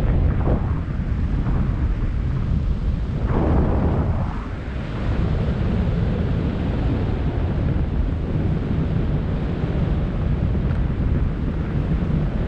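Wind buffeting the camera's microphone during flight under a parachute canopy: a loud, steady low rumble that swells in gusts, once just after the start and again at about three and a half seconds.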